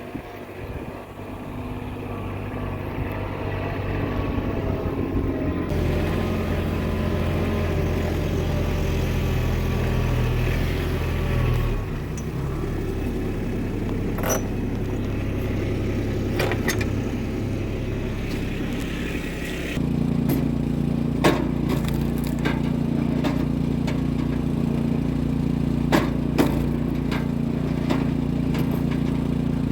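An engine running steadily, settling at a different speed about six seconds in and again about twenty seconds in, with occasional sharp clanks and rattles.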